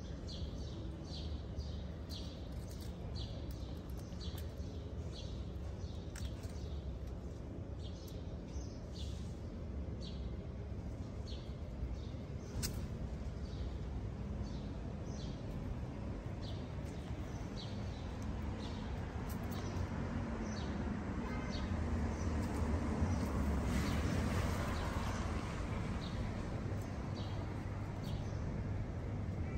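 A small bird chirping over and over, short high chirps about once a second, over a steady low rumble of street traffic that grows louder for a few seconds past the middle.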